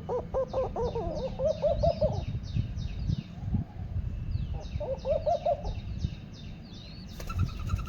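Nestling birds calling to be fed: fast runs of short high chirps, with a lower series of quick rising-and-falling calls at the start and again about five seconds in. Low rumbling noise sits underneath.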